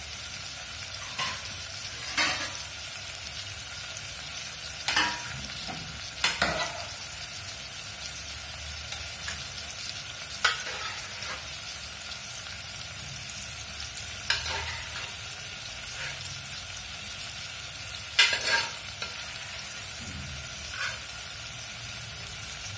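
Sliced onions and tomatoes sizzling gently in oil in a steel pot on low heat, a steady frying hiss. A few short, sharp clinks and knocks come now and then over it.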